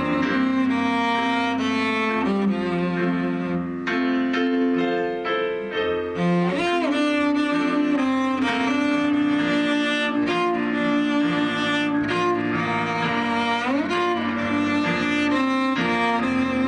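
A cello and piano duo playing: the cello holds long bowed notes with a couple of sliding shifts in pitch over piano chords.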